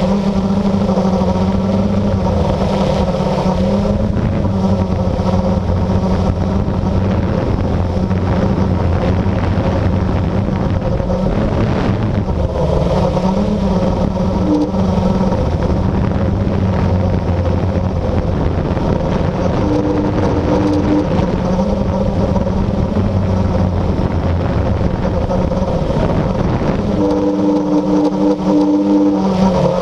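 Blade 350QX quadcopter's electric motors and propellers buzzing steadily, heard from the camera mounted on the drone, with the pitch shifting near the end.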